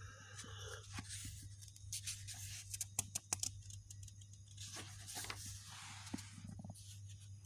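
Pages of a paper comic book being handled and turned by hand: rustling paper, with a cluster of sharp snaps and flaps about two to three seconds in, over a steady low hum.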